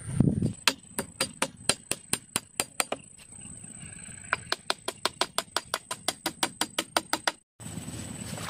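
Two quick runs of sharp knocks, about five a second, over a thin steady high-pitched whine; the sound cuts out abruptly near the end.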